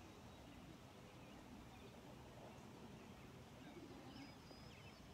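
Near silence: faint open-air ambience, with a few faint bird chirps in the second half.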